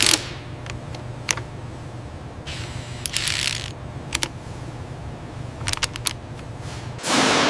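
Wrench and metal tool work: scattered sharp clicks and ratcheting over a steady low machinery hum, with a short burst of noise about three seconds in. Near the end comes a loud metal clang that rings out.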